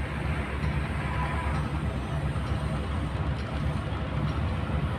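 A fishing boat's engine running steadily, a low rumble.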